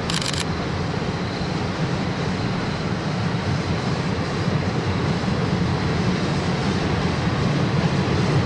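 Distant steam locomotive D51 498 and its train approaching, a steady low rumble that slowly grows louder, with a brief high tone at the very start.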